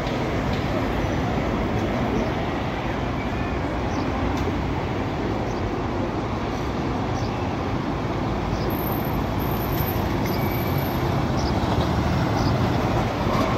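Street traffic with a city bus's diesel engine running as buses pass, a steady low rumble that grows a little louder near the end as a bus turns close by.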